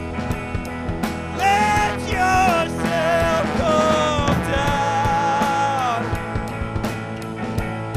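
A rock band playing live: drum kit with cymbals, electric guitar and bass. Over it a trombone plays a held melodic line from about a second and a half in until about six seconds, where it falls away.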